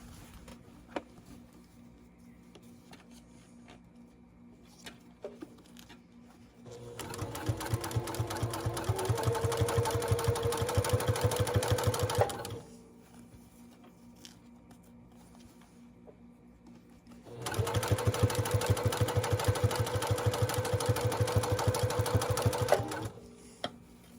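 Sewing machine stitching in two runs of about five to six seconds each, the first starting about seven seconds in and the second about seventeen seconds in, each with a fast, even stitch rhythm and stopping abruptly. A few faint clicks of handling come before and between the runs.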